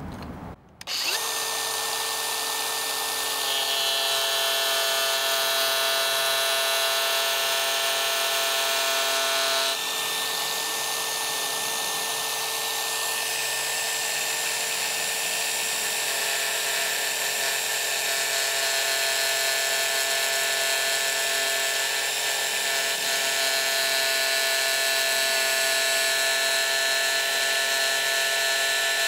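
Angle grinder with a 50-grit sanding disc switching on about a second in, then running steadily at high speed with a whine made of several fixed tones and a high hiss as it grinds back MDF crown moulding to cut a cope.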